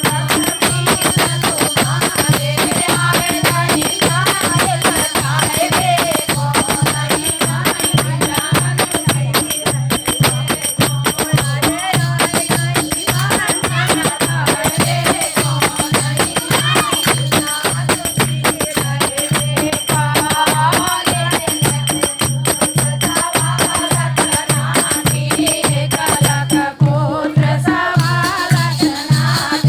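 A Hindi folk bhajan sung over a steady low beat about twice a second, with rattling hand percussion throughout.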